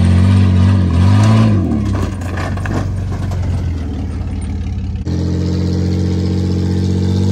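Dodge Dakota pickup's engine revving up and down twice as it drives through the dirt, then running rougher. About five seconds in it cuts to a steady engine drone from a Kubota diesel tractor at the stuck truck.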